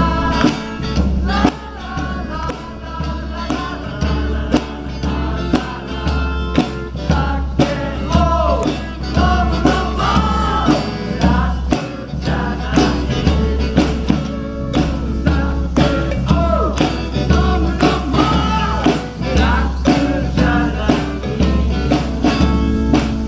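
Live band music: a voice singing over a strummed, steady rhythm with a pulsing bass line.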